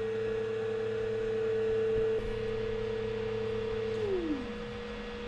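Elegoo Saturn 4 Ultra resin 3D printer's Z-axis stepper motor whining at a steady pitch as it lowers the build plate after the print is resumed. About four seconds in, the pitch glides down as the motor slows.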